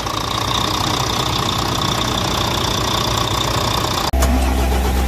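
Volvo D13 inline-six diesel truck engine running at idle, with a steady high-pitched whine over the engine noise. About four seconds in the sound breaks off abruptly and comes back as a louder, deeper engine sound.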